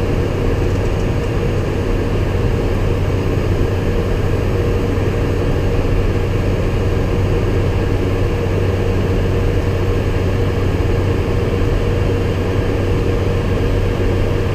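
Steady cockpit noise of an airliner in the climb: engine and airflow noise with a steady low hum and a fainter higher tone running through it.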